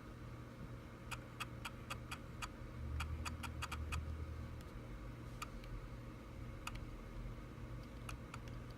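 Olympus 75mm f/1.8 lens's aperture mechanism clicking as the aperture is stepped: two quick runs of small clicks, then a few single clicks near the end. Olympus support holds this noise to be normal for the lens.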